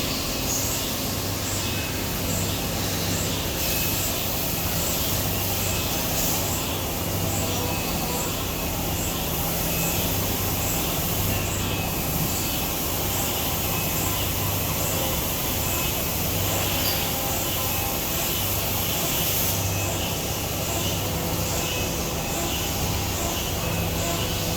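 CNC machine running in a machine shop: a steady hiss and hum, with a faint regular ticking about every two-thirds of a second.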